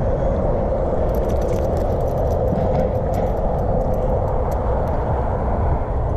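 Steady wind rumbling on the microphone, with light clicks and rattles from about a second in to about five seconds in as a fish and lure are handled.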